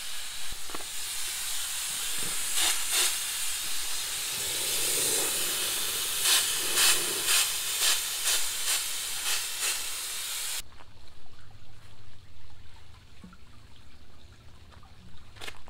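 Air-powered spray gun hissing as it sprays LinerExtreeme bedliner onto a truck body, in a string of short spurts, then cutting off abruptly about ten seconds in. A faint low hum follows.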